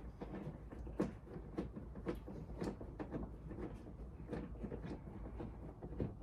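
Irregular light clicks and taps of hands working on a car door's trim and parts, over a low steady hum.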